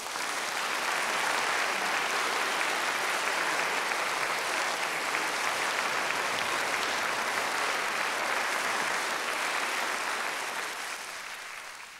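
Concert audience applauding: dense, steady clapping of many hands that thins a little near the end and then cuts off abruptly.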